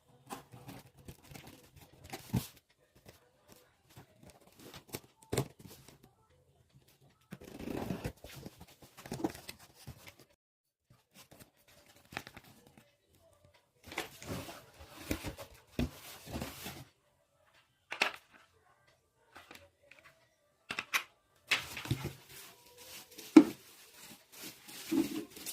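Cardboard box and packing being opened and handled: intermittent rustling and tearing with short knocks, broken by silent pauses.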